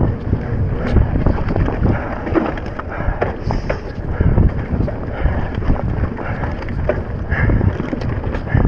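Wind buffeting the microphone over the constant rattle and knocking of a Transition Spur full-suspension mountain bike descending a rough trail at speed, its tyres rumbling over the ground.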